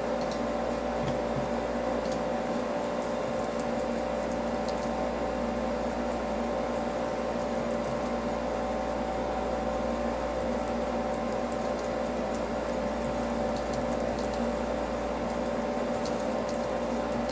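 Steady machine hum with several held tones and a low rumble, with faint scattered clicks of keyboard keys as a file name is typed.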